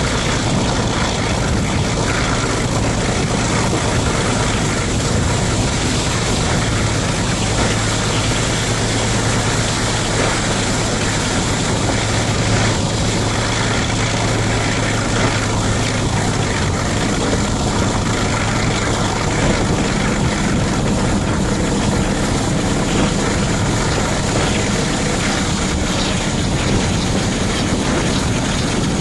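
Class 42 Warship diesel-hydraulic locomotive under way on one engine, heard from the cab window: a steady low engine hum under heavy wind rush and running noise.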